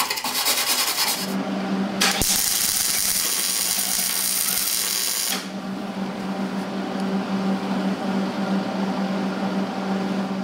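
MIG welder, set at voltage 2 and wire speed 45, welding a steel sheet-metal patch panel. A sharp click about two seconds in starts about three seconds of dense, crackling arc sizzle. A quieter hiss and a steady low hum carry on after it.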